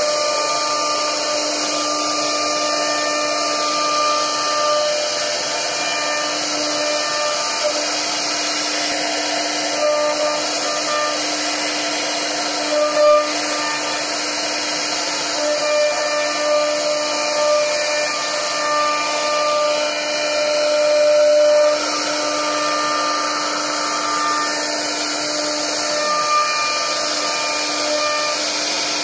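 CNC wood router's spindle cutting a carved scroll pattern into a wooden board, with its dust extraction drawing air: a steady whine and hiss, with higher tones that come and go as the cutter moves, and a few brief louder swells.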